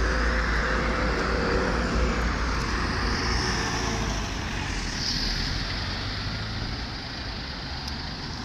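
Road traffic on a city street: vehicles passing close by with a low rumble, getting gradually quieter over the few seconds.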